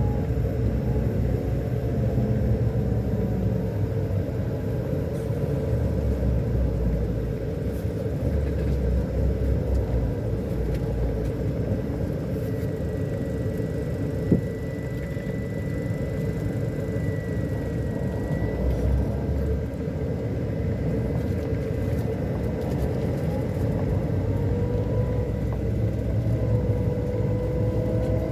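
Scania K-400 Euro 5 diesel engine of a double-decker coach running steadily under way, a low drone whose tones drift slowly up and down. A thin high whine joins about halfway through, and there is a single sharp click near the middle.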